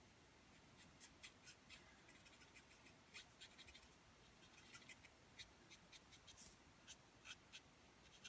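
Faint scratching of a Copic alcohol marker's nib on paper, in short, irregular blending strokes several times a second.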